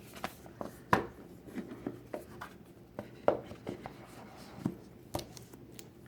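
Hands handling a phone box and its packaging: scattered light taps, clicks and rubbing of cardboard and plastic, with sharper clicks about a second in and again a little past three seconds.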